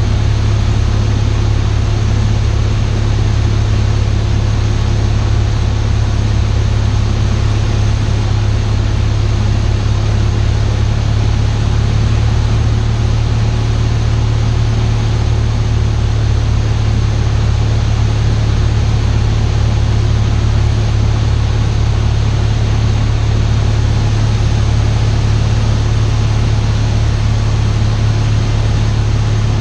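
Steady drone of a Cessna 172's engine and propeller in cruise flight, heard inside the cockpit, with a low hum and an even rushing noise that stay unchanged throughout.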